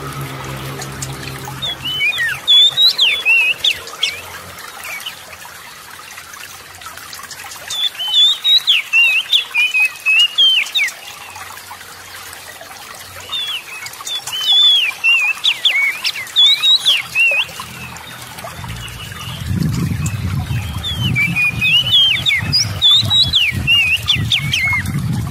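Oriental magpie-robin singing in four bursts of quick, sweeping notes over steadily trickling water; a low rumble joins in the last few seconds.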